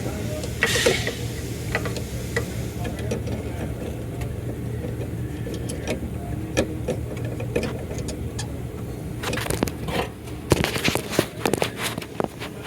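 Hands working a halogen headlight bulb into its plastic socket behind the headlight housing: scattered small clicks and scrapes of plastic, coming thicker near the end, over a steady low hum.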